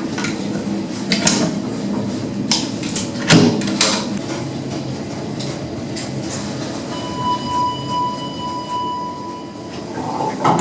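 A Schindler machine-room-less lift running, with a steady rumble and hum and a few sharp clunks early on, then a steady electronic beep lasting about two seconds about seven seconds in.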